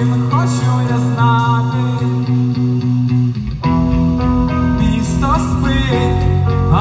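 Live rock band music: electric guitars hold notes and slide between them over drums. About three and a half seconds in, the low end fills in heavier with bass and drums.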